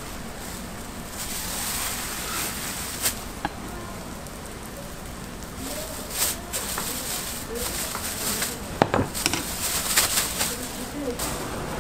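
Thin plastic bag crinkling and rustling in short bursts as a stack of cut Korean pancakes is slid into it and lifted, over a steady hiss.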